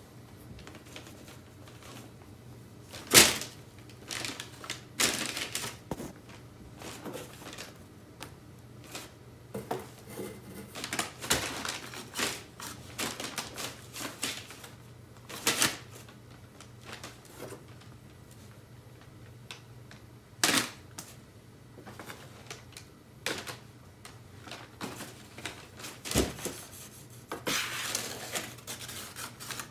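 Brown kraft packing paper crinkling and rustling in a cardboard box as a cat paws and pounces at it, with irregular sharp crackles and taps. The sharpest crackles come about three seconds in and about twenty seconds in.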